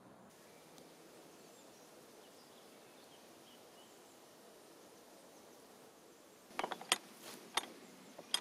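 A canal lock's cast-iron paddle gear being worked with a windlass: from about six and a half seconds in, a few sharp, irregular metal clicks and clanks of the windlass on the spindle and the ratchet pawl, after a low steady background.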